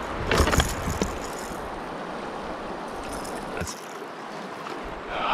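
Moving river water around a kayak, with paddle strokes splashing about half a second in and again near one second as the kayak is turned around.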